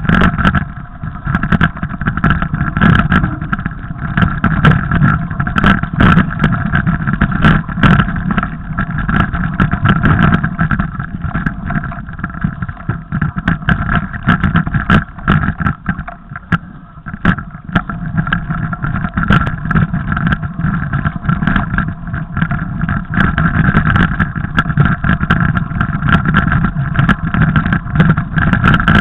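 Mountain bike riding over a snowy trail: a steady rumble of wind and tyres, with frequent knocks and rattles as the bike goes over bumps.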